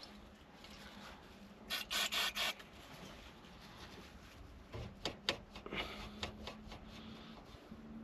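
A few short hissing bursts from an aerosol can of brake disc cleaner about two seconds in, sprayed onto the dirty horn contact track on the steering column. They are followed by several light rubbing and scraping sounds a few seconds later.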